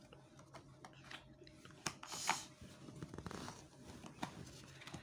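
A microSD card's cardboard-and-plastic retail pack being pulled open by hand. Scattered crackles and clicks, a short tearing rip a little over two seconds in, then another stretch of rustling about a second later.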